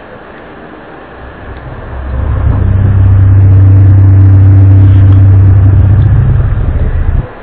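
A loud, low droning hum at a steady pitch with overtones. It swells up out of faint background noise over about a second, holds level, and dips briefly just before the end. It is of the kind posted as a mysterious 'strange sound from the sky'.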